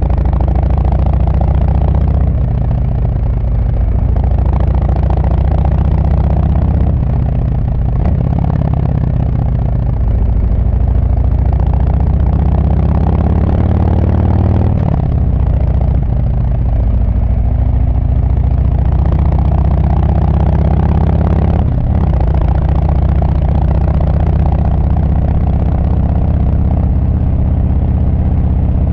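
Harley-Davidson Sport Glide's V-twin running through Screamin' Eagle Street Cannon mufflers under way, its deep exhaust note rising and falling with the throttle. Near the middle the pitch climbs for a few seconds, then drops back, and there is a short sharp crack about two-thirds of the way through.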